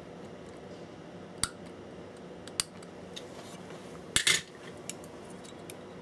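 Small metal hand tools clicking and clinking against each other and the workbench while a wire is soldered to a circuit board: a few sharp single ticks, with a louder quick rattle of clinks about four seconds in, over a faint steady hum.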